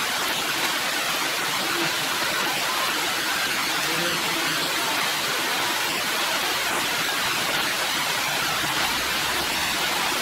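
Heavy rain falling steadily: an even hiss.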